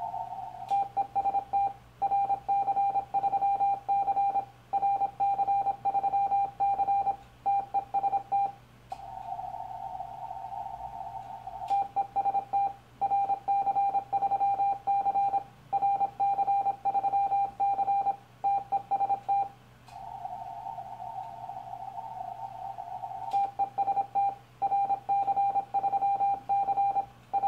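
Morse code sidetone from a Yaesu FT-1000MP transceiver, a single mid-pitched tone keyed in even, computer-timed dots and dashes, sending a CQ call on the 40 m CW band. The call repeats about every eleven seconds, with a faint click as each call starts, and a few seconds of narrow-filtered receiver hiss between calls while the band is listened to for replies.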